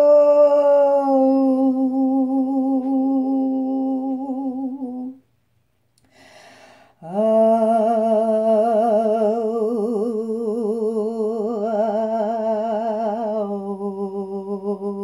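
A woman's voice toning long, steady held notes. The first note steps down in pitch and stops about five seconds in. After a breath, a second, lower note wavers in pitch and steps down again near the end.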